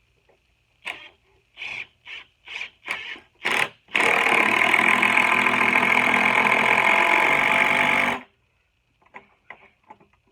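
Impact drill driving a 5/16-inch lag bolt into wood. It gives several short trigger bursts, then runs for about four seconds and stops suddenly, with a few faint ticks afterwards.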